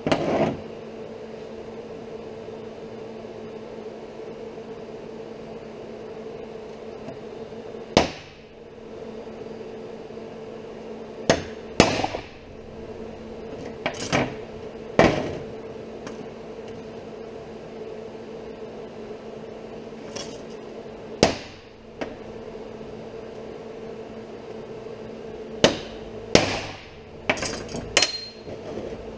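Steel channel and angle pieces knocked and set down on a steel workbench: about a dozen sharp metallic clanks at irregular intervals, several in a quick cluster near the end, over a steady background hum.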